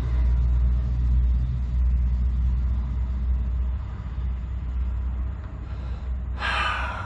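Low, steady rumble that eases off about four seconds in, with a short burst of hiss near the end.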